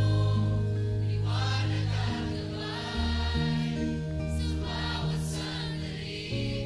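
Live worship band playing a slow worship song, with held bass notes that change every couple of seconds under the electric guitar and drums. A female lead voice sings over it twice, about a second in and again past the middle.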